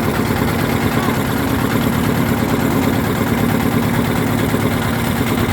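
Boat engine running steadily, a constant hum over a fast low chugging.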